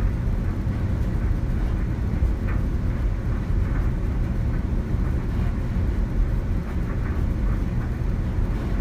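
Hand-held hair dryer running steadily: an even, low-heavy airflow noise with no pauses.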